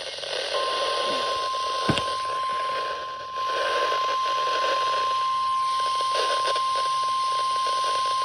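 NOAA Weather Radio warning alarm tone: a single steady beep near 1 kHz that starts about half a second in and holds, over radio static. It is the alert signal sent ahead of a tornado warning.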